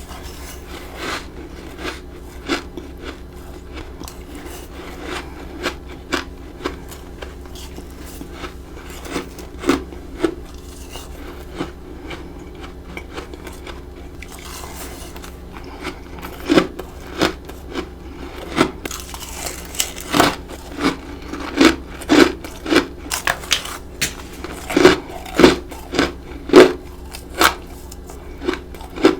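Bites of freezer frost crunching between the teeth. The crunches come sparsely at first, then more often and louder through the second half, about one or two a second near the end.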